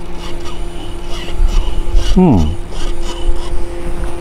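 Rudder servo on an RC helicopter buzzing with a steady hum while powered and driven from the transmitter, with a steeply falling whine about two seconds in as it moves against finger pressure on its linkage. It is being checked for stripped gears and shows no problem so far.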